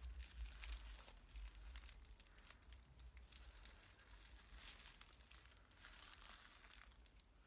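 Faint, irregular rustling and crinkling of moisturizing foot-mask booties being pulled off the feet.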